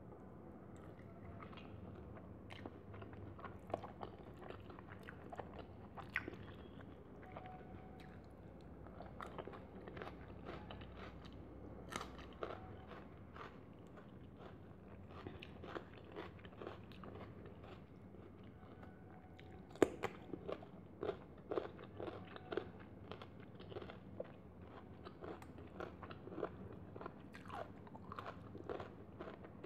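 Close-miked eating sounds: chewing, wet mouth clicks and smacks as boiled egg and curried rice are eaten by hand, with fingers squishing and mixing rice on a steel plate. Short clicks come throughout, with a louder, quicker run a little past the middle.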